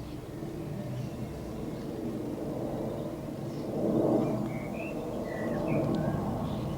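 Jet noise from a Boeing E-4 Nightwatch's four turbofan engines on final approach: a steady rumble that swells to a peak about four seconds in. Small birds chirp intermittently over it.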